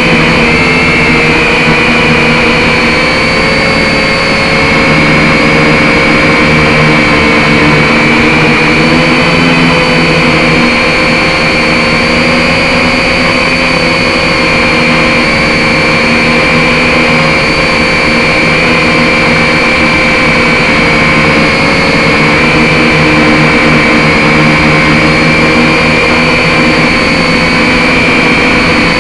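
Drone's electric motors and propellers running steadily, heard close up as a loud whirring whine whose pitch wavers slightly.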